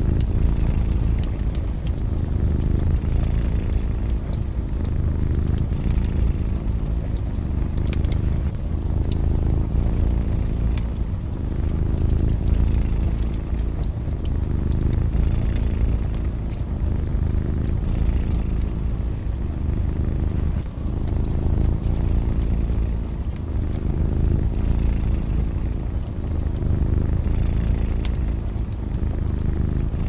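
Domestic cat purring, a low rumble that swells and eases every two seconds or so, over a wood fire crackling with scattered small pops.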